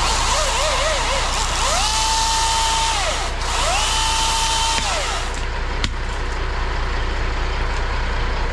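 Milwaukee battery chainsaw whining up to speed twice, each run holding for about a second and a half before winding down, over the steady idle of a truck engine. A sharp click comes about six seconds in.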